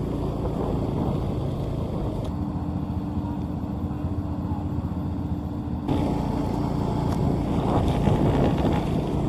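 Combine harvesters running, a steady mechanical drone with a held hum; the sound changes abruptly about two seconds and about six seconds in.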